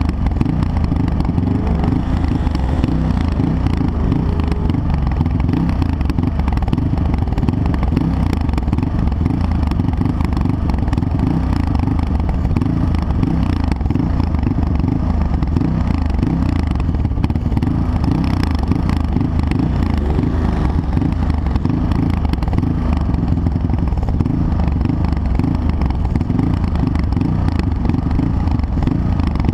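Steady, loud low rumble of an off-road vehicle's engine idling while the vehicle sits still.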